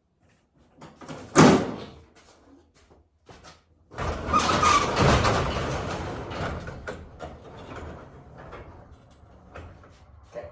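A sharp knock about a second and a half in, then a door sliding with a long rumbling scrape that starts suddenly about four seconds in and slowly dies away.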